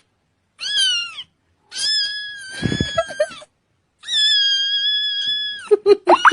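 A cat giving high-pitched, squeaky calls: one short arched call, then two long, drawn-out level calls. A low rumble of handling or movement sits under the first long call.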